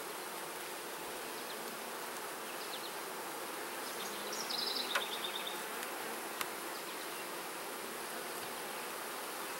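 Honeybees humming steadily around an open hive, with two light clicks about five and six and a half seconds in as the frames are handled.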